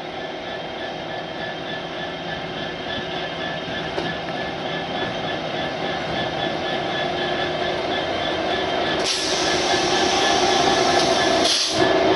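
Freightliner Class 66 diesel locomotive running under power with its EMD two-stroke V12 engine, hauling a train of hopper wagons; its steady engine note grows louder as it approaches. About nine seconds in, a loud rushing hiss joins as the locomotive passes close.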